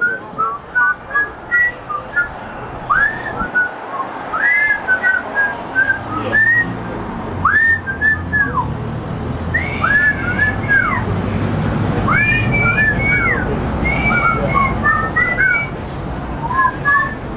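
Several men whistling a tune together, short rising and falling notes, at times two whistled lines at once in harmony. A low rumble sits underneath from about six seconds in.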